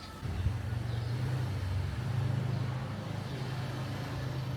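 A motor vehicle's engine running with a steady low hum that comes in about a third of a second in.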